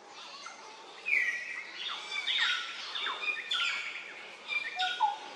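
Birds singing: a run of high, held whistled notes that step between pitches, with quick falling slurs between them, starting about a second in. Near the end come a couple of short, lower, rising notes.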